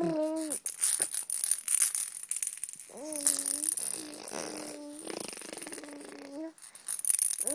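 Baby blowing raspberries with voice: a buzzing lip trill over high-pitched vocal sounds, in several drawn-out stretches with rattly lip-flapping noise between them.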